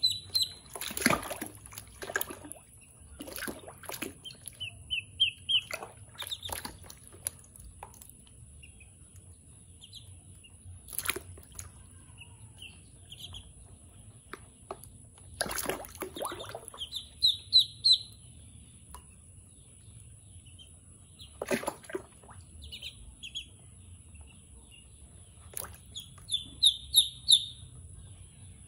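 Ducklings peeping in several short runs of high calls, with a splash of water every few seconds as they swim and flap in a plastic tub.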